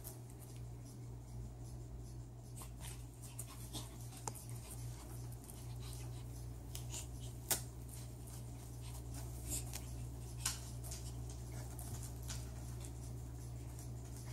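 A raccoon's claws scratching and scrabbling at the rope-wrapped posts of a cat scratcher: irregular scratchy scrapes and clicks, with a couple of sharper ones about halfway through and two-thirds of the way in.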